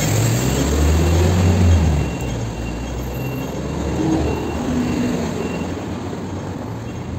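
Road traffic beside the sidewalk: a vehicle's low engine rumble, loudest in the first two seconds, over steady street noise.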